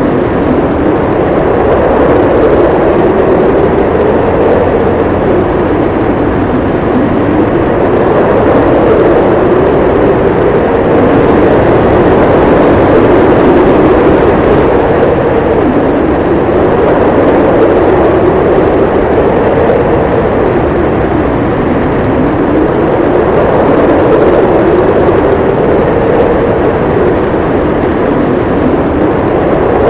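Blizzard wind howling steadily, its pitch slowly rising and falling every few seconds.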